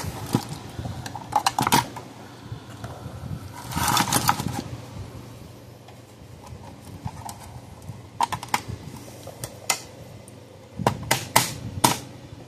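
Scattered light clicks, taps and clatter of hand tools and plastic parts being handled while wiring is fitted into a plastic electric fence energizer case, with a scraping patch about four seconds in and a cluster of sharp clicks near the end.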